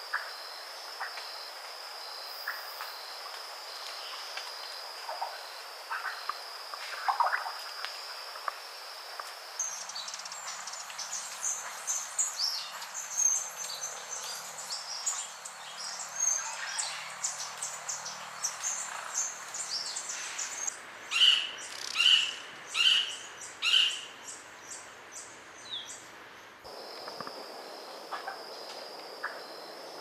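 Birds calling and chirping over a steady high insect drone. About a third of the way in, the drone drops out and a busier run of chirps takes over, with four loud calls about a second apart near the end; the drone comes back in the last few seconds.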